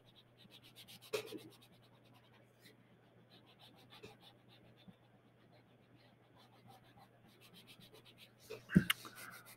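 Gray crayon being rubbed back and forth on sketchbook paper in light shading strokes: a quiet, quick, even run of soft scratches.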